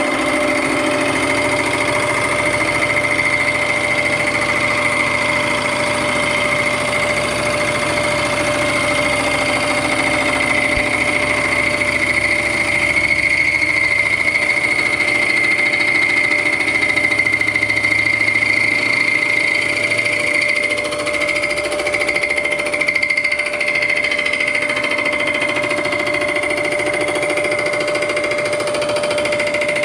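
Vertical milling machine's cutter decking the cast-iron head surface of a 1927 Chevy engine block, running with a steady high-pitched whine over the cutting noise.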